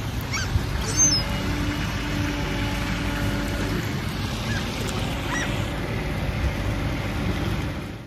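Birds calling at a pond's edge: mallards quacking, with a few short, high, falling calls from other birds, over a steady low background rumble.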